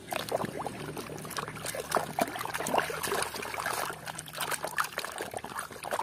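A plastic toy being swished by hand in a plastic tub of muddy, foamy water: continuous irregular splashing and sloshing.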